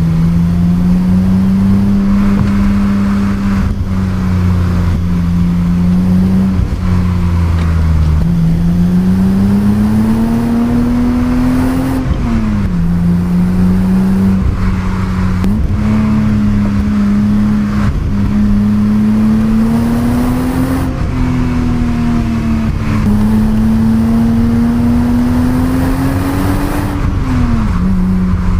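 1988 BMW 325i E30's stock 2.5-litre inline-six running under acceleration. Its note climbs slowly and then drops sharply, four times over.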